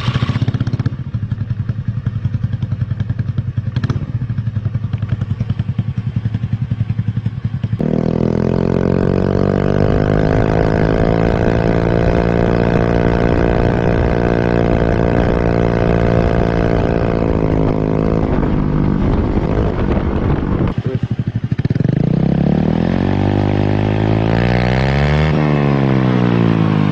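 Honda Beat scooter's stock single-cylinder four-stroke engine running through an aftermarket 888 MTR racing exhaust. It idles with a fast, even exhaust pulse for about eight seconds, then pulls strongly and steadily under way before easing off. Near the end it is revved up and dropped back down.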